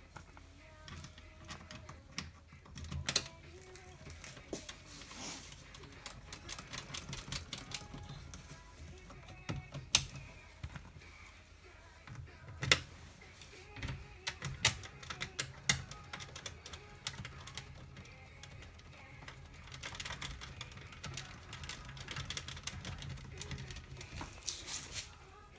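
Irregular clicks and light taps of small parts and hand tools being worked, with a few sharper knocks, the loudest about ten seconds in.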